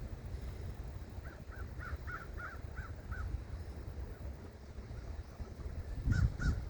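A bird giving a quick run of about seven harsh, caw-like calls starting about a second in, then another run of calls near the end, over a steady low rumble.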